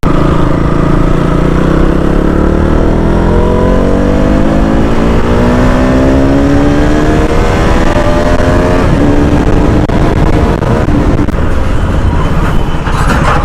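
Motorcycle engine pulling under load, its pitch climbing slowly for about nine seconds, then dropping back slightly and holding steady, over constant wind and road noise.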